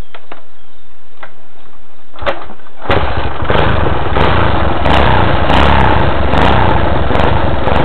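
1981 Honda XL185's single-cylinder four-stroke engine being started: a few clicks and a short burst, then it catches about three seconds in and keeps running. The engine has a blown oil ring, which the owner says needs a rebuild.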